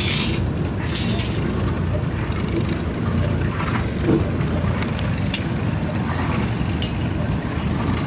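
A steady low rumble, with a few sharp, faint clicks from rebar being tied with binding wire and pliers.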